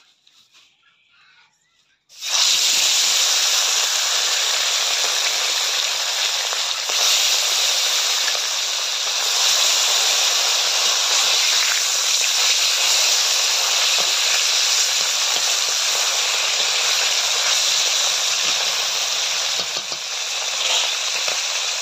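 Whole bata fish going into hot oil in a wok, setting off a sudden loud sizzle about two seconds in that then runs on steadily as they fry.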